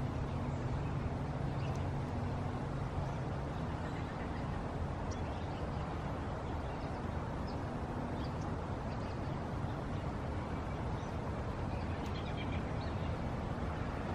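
Steady low rumble of background engine noise with a faint hum, and faint scattered chirps of small birds.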